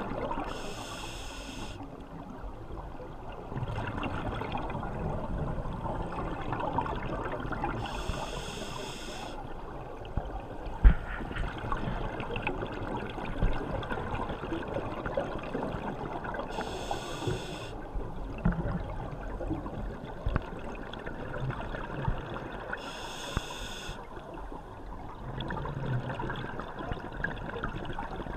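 Scuba breathing heard underwater through a regulator: a hiss about a second long on each inhalation, four times, every six or seven seconds, with bubbling and gurgling of exhaled air between. A single sharp knock sounds near the middle.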